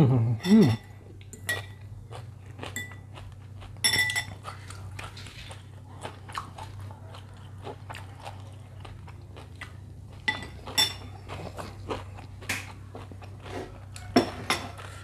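Close-miked eating of a bowl of noodles: cutlery clinking and ringing against the bowl a few times, with biting and chewing between. A short voiced sound from the eater opens it.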